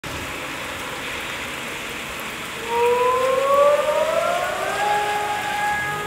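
Outdoor alarm siren winding up about two and a half seconds in, rising in pitch for about two seconds and then holding a steady tone, with a second, lower siren tone joining near the end; the siren is raising the alarm for the fire brigade. Before it, a steady hiss of rain.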